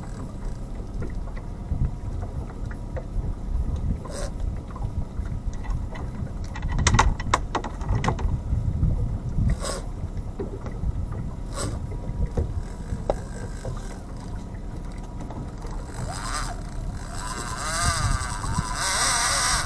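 Steady low rumble of a small boat on the sea, broken by a few sharp knocks. From about 16 s in, a louder raspy whirring comes from the big-game reel as line is cranked in against a hooked amberjack, a fish of about 20 kg.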